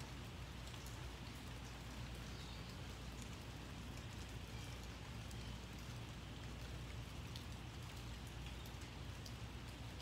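Light rain falling steadily, with scattered drops ticking on a surface, over a low steady rumble.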